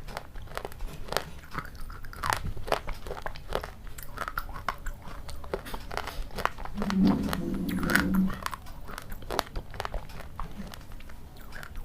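Close-up crunching and chewing of crisp food: many short, sharp crackles spread through the whole stretch. About seven seconds in, a low steady-pitched sound lasts about a second and a half and is the loudest part.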